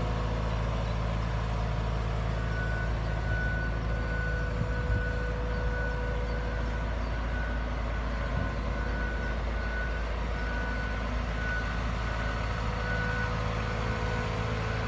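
JCB JS220LC tracked excavator's diesel engine running steadily, with its travel alarm beeping over and over from about two and a half seconds in: the sign that the machine is moving on its tracks.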